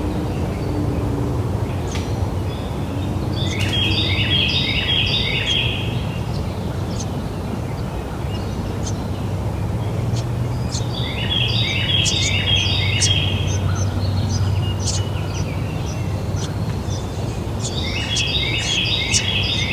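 Wild birds singing: one bird repeats a quick run of short falling notes three times, about every seven or eight seconds, among scattered short chirps from others, over a steady low background rumble.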